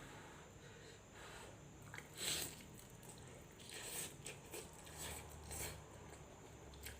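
Close-miked eating of fried instant noodles: wet chewing and mouth smacks in short bursts, the loudest about two seconds in.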